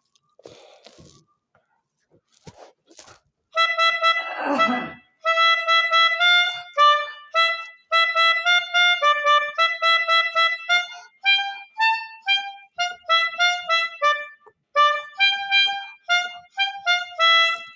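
Telolet basuri multi-tone horn playing a melody in a string of short and held horn notes, starting about three and a half seconds in after a few faint rustling noises.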